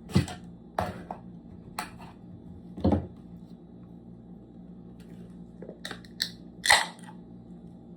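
Aluminium beer can being handled: a run of sharp clicks and knocks, a heavier knock about three seconds in and the loudest crack near the end.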